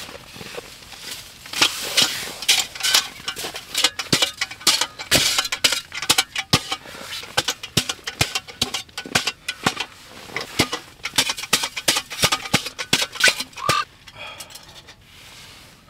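Snow shovel digging and scraping in snow: a long run of irregular sharp crunches and scrapes that stops about two seconds before the end.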